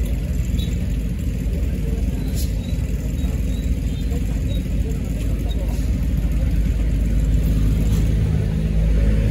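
A heavy dump truck's diesel engine running steadily, a low rumble that stays even throughout.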